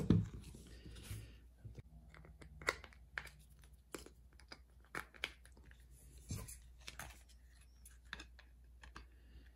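Scattered light clicks and taps of plastic pieces being handled, as a tabletop miniature's plastic base and stand are fitted together.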